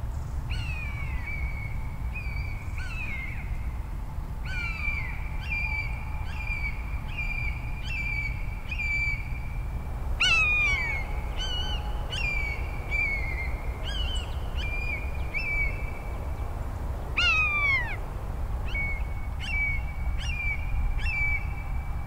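Common buzzard giving two loud mewing calls that fall in pitch, about ten seconds in and again some seven seconds later, over a young buzzard's short begging calls repeated again and again in the background.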